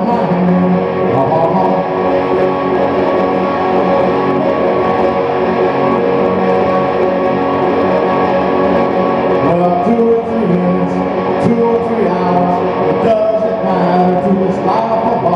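Guitar playing an unbroken instrumental passage.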